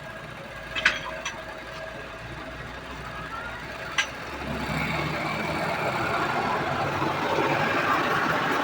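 A few sharp metal clinks, the loudest about a second in, from steel tyre tools and the bead-breaking rig at work on a pickup tyre. From about halfway, a steady engine-like rumble rises and stays loud.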